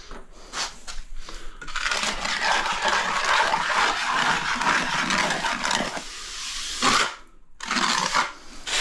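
A tool scraping rough and abrasive against a wall surface as it is smoothed off. There is one long stretch of about four seconds, then two short strokes near the end.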